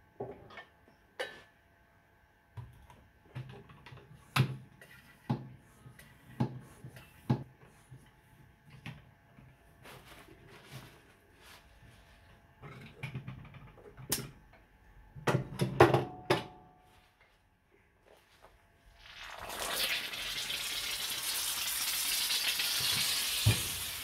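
Knocks and clicks of a hand floor tyre pump being worked, pressurising a fridge compressor that lies with its suction line facing down. About 19 seconds in, a loud hiss begins as compressed air and lubricating oil are forced out of the compressor's pipe into a paper towel, holding for several seconds and starting to fade at the end: the pressure has pushed the compressor's oil out through its line.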